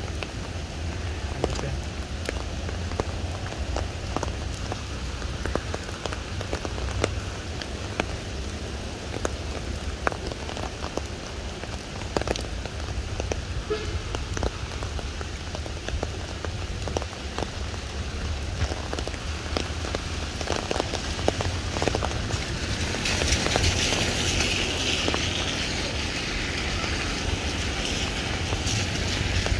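Steady rain falling on a wet paved walkway and road, with many small, sharp drop ticks over an even hiss and a low rumble underneath. The hiss gets louder and brighter about three-quarters of the way through.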